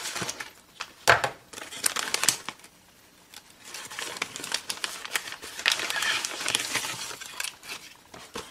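Scissors snipping through a brown paper mailer envelope, then the paper crinkling and rustling as the envelope is opened and a small cardboard box is pulled out. There is a short pause about three seconds in.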